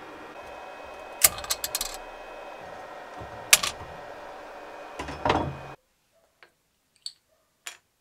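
Steady hum of a 3D printer's fans, with sharp clicks and knocks of hard plastic as a freshly printed part is handled inside the printer. About six seconds in the hum stops and only a few light taps of plastic parts set down remain.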